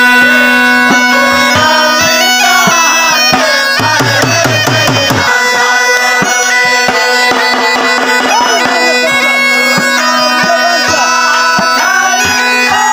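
Been, a reed pipe, playing a bending jhumar melody over a steady drone, with dhol drum beats keeping time.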